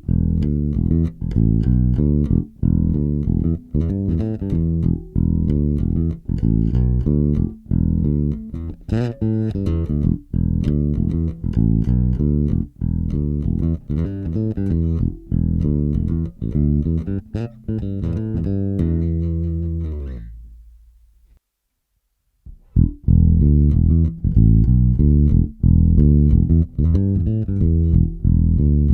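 Bass guitar playing a rhythmic plucked groove. It fades out about two-thirds of the way through, stops briefly, then starts again.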